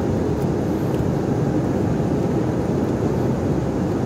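Steady cabin noise of an airliner in flight: an even, deep rush of engines and airflow.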